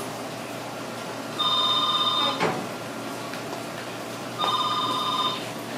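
Telephone ringing: two electronic trilling rings about three seconds apart, each just under a second long.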